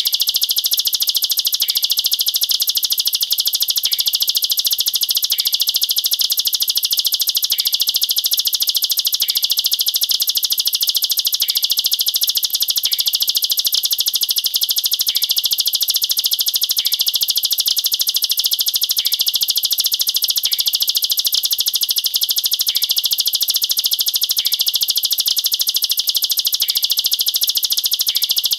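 Ciblek sawah, a prinia, singing its rapid 'nembak rapat' song: a dense, high-pitched rattle of tightly packed notes that runs on without a break.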